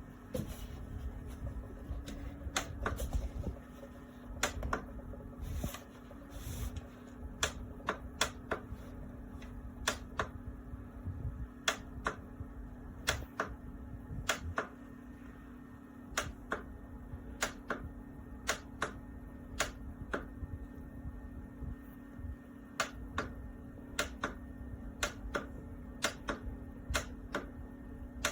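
Sharp clicks or taps, irregularly spaced about one a second, over a steady low hum.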